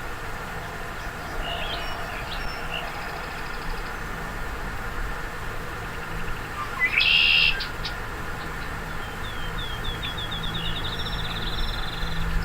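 Wild birds singing: scattered high calls, a louder burst of song about seven seconds in, and a run of quick repeated notes that speeds up near the end, over a steady low hum.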